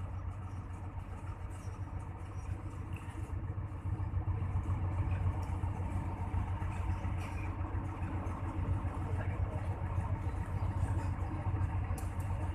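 Diesel engine of a Hino AK8 bus running with a steady low rumble, growing a little louder about four seconds in.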